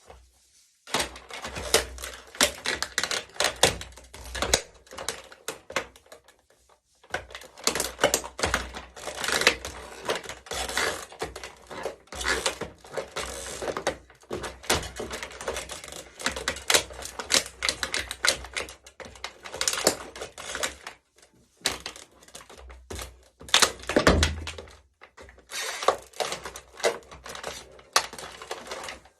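Hard plastic of a toy remote-control car crackling and snapping in rapid, irregular clicks as it is pressed and crushed underfoot, with brief pauses and a heavier thump about three-quarters of the way through.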